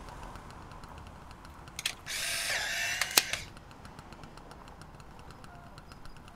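Instant camera taking a picture: a shutter click, then its motor whirs for about a second and a half as it pushes out the print, with a sharp click near the end of the whir.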